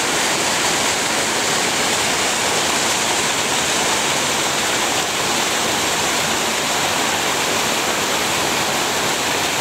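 Rocky creek cascading over boulders: a steady, even rush of water.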